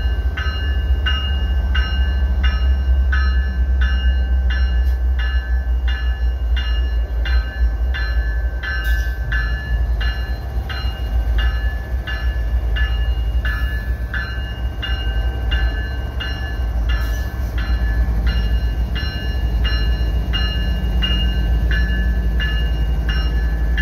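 GE ES44AC diesel locomotives running with a heavy, steady low rumble, while a bell rings steadily at about two strokes a second.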